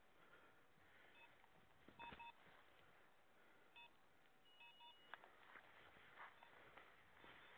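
Faint short electronic beeps at irregular intervals, some in quick pairs, from a hunting setter's beeper collar, the usual signal for keeping track of a dog out of sight in thick cover. Brush rustles and scrapes against the walker from about five seconds in.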